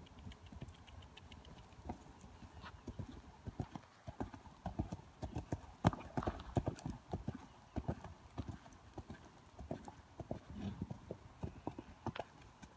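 A horse's hoofbeats cantering on soft dirt and grass, with a louder thud about six seconds in as it lands from a jump.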